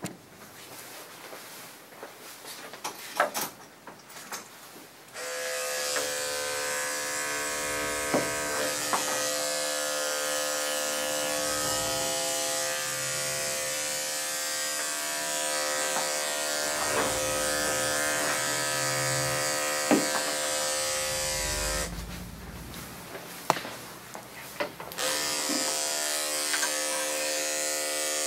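Electric dog-grooming clippers switch on about five seconds in and run with a steady hum. They shut off for a few seconds, then start again near the end while trimming around a small dog's face. Light clicks and knocks come before the motor first starts.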